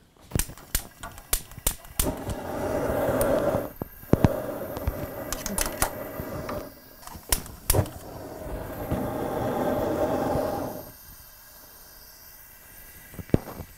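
Clicking of a lighter and the burner valve on an Explorer two-burner propane camp stove, then the rush of gas and flame as the burners light. The rushing comes in three spells of a few seconds each, with more clicks between them, and dies down near the end.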